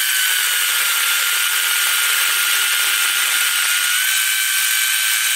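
Campagnola T-REX cordless pole saw's brushless motor and chain running with a steady high whine as it saws through a tree branch. The pitch sags slightly as the chain bites and rises back about four seconds in as the branch cuts free. The sound stops abruptly at the end.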